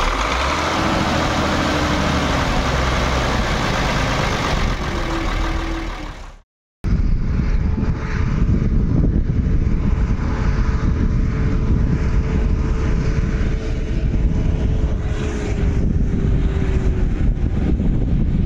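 Ursus 1224 tractor's six-cylinder diesel engine running up close. After a short break about six and a half seconds in, the tractor is heard further off, driving along the road toward the listener with a steady engine note.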